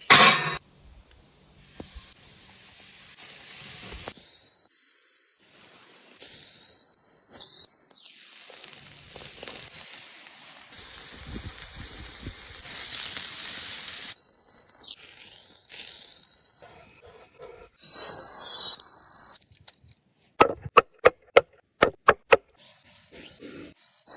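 Meat sizzling and hissing over an open fire, heard in several short cuts, with a louder burst of hiss about three-quarters of the way through. Near the end comes a quick run of about eight sharp knocks.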